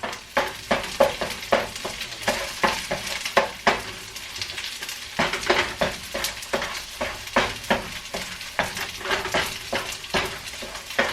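Eggs and rice sizzling in a hot non-stick wok while a non-stick utensil scrambles and stirs them, with quick scraping strokes against the pan, two or three a second, easing off briefly near the middle.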